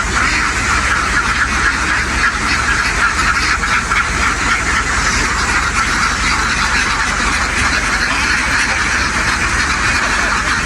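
A huge flock of domestic ducks quacking all at once, a dense continuous din with no single call standing out, over a steady low rumble.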